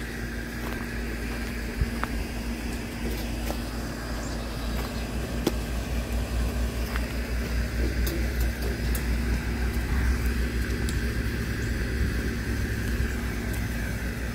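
Low, fluttering rumble of wind buffeting the microphone, growing a little louder partway through, over a faint steady hum, with a few light clicks.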